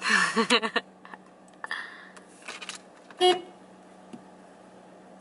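A car horn gives one short toot about three seconds in.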